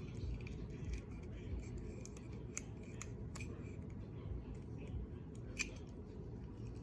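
Handling of small plastic toy packaging and stickers: scattered small sharp clicks with light rustling, the sharpest click about five and a half seconds in.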